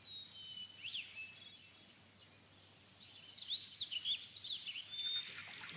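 Small birds singing: a few thin, held whistles at first, then after a short lull a run of quick warbling phrases that rise and fall, ending on another held whistle.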